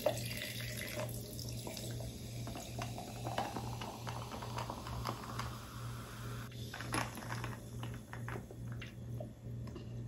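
Mountain Dew poured from a can into a tall glass of ice: a steady splashing pour of carbonated soda, with scattered small crackles in the later part.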